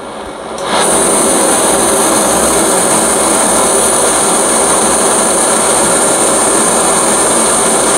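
BRS-3000T gas canister stove burner hissing. About a second in, the gas valve is opened up and it jumps to a loud, steady hiss at full flame.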